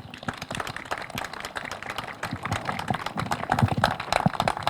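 Scattered applause from a small crowd, heard as many separate claps.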